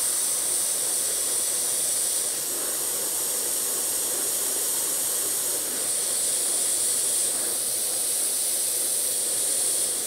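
Gravity-feed airbrush hissing steadily as compressed air sprays black paint onto metal in small dots. The hiss is high and even, swelling slightly a few times.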